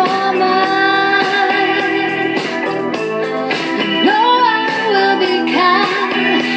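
Music: a song with a sung vocal over guitar.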